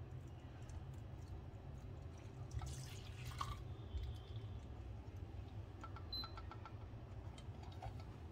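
Melted clarified butter (ghee) pouring from a pot through a silk-lined strainer: a faint trickle and drip, a little louder about three seconds in, over a steady low hum.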